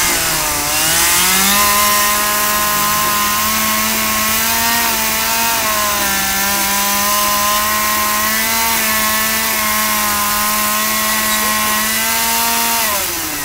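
Small two-stroke chainsaw at high revs carving into a wooden log. Its pitch sags just after the start as the bar bites, holds nearly steady, then drops away near the end as the throttle comes off.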